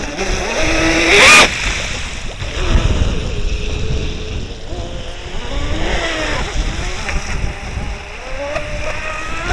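Electric RC speedboat running on a 6S LiPo at speed, its motor whine gliding up and down in pitch with the throttle over the hiss of the hull's spray. A short loud rush of noise comes about a second in.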